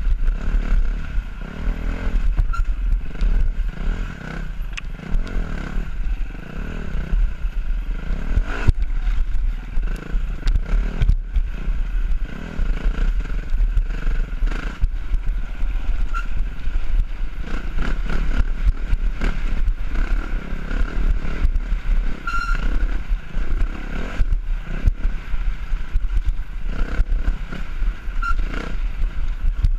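Dirt bike engine revving up and down over and over as it is ridden, with wind rumbling on the helmet-mounted microphone and scattered knocks and clatter from the bike over rough ground.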